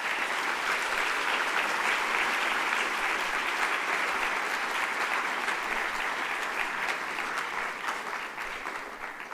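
Audience applause in a lecture hall: many hands clapping steadily, fading out near the end.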